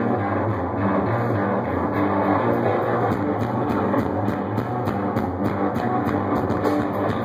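Live rock band playing: electric guitar over a drum kit keeping a steady beat, with no singing.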